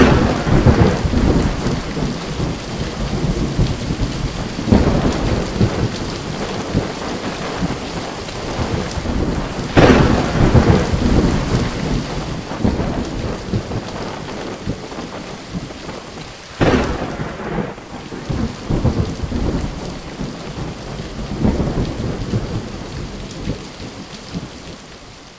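Heavy rain pouring in a thunderstorm, with loud rolling thunderclaps breaking in at the start and again about five, ten and seventeen seconds in, each rumbling away. The storm fades out near the end.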